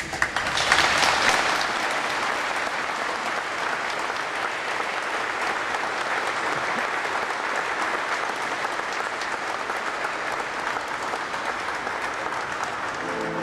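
Congregation applauding in a church. The applause swells sharply about a second in, then carries on as steady, sustained clapping.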